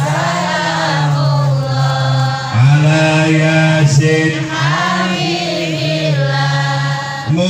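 Sholawat to the Prophet Muhammad chanted in long, held, melismatic notes, a man's voice leading the congregation in singing.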